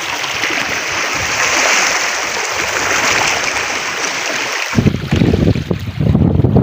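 Shallow seawater washing over shore rocks, a steady hiss; about three quarters of the way through it switches abruptly to wind rumbling on the microphone.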